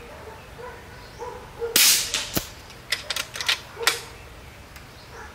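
Uragan 2 PCP air rifle firing a single shot of a 33-grain Zan slug about two seconds in, followed about half a second later by one sharp knock. Then a quick run of clicks as the biathlon cocking handle is worked to chamber the next slug.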